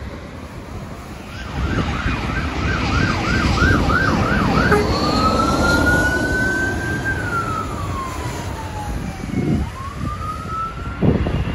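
Fire engine siren passing: a fast yelp, about two to three sweeps a second, that changes about five seconds in to a slow wail, rising, falling and rising again, over the truck's engine and road noise.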